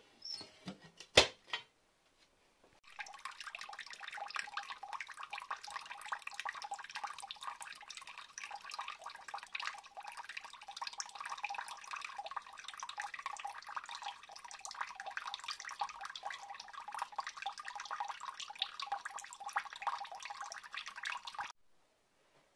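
Water trickling and splashing steadily into a tub of standing water, a dense crackling patter that cuts off suddenly near the end. Before it, about a second in, comes a single loud metal clank as the brick stove's iron door is shut.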